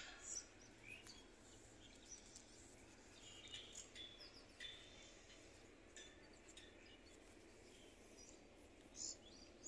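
Near silence with faint, scattered chirps of small birds.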